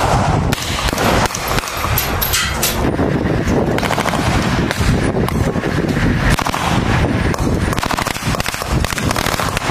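Automatic gunfire: rapid bursts of shots from rifles and a turret-mounted machine gun, the shots following one another with hardly a gap.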